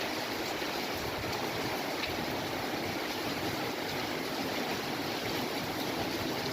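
Storm rain and wind making a steady, even hiss, with no gusts or knocks standing out.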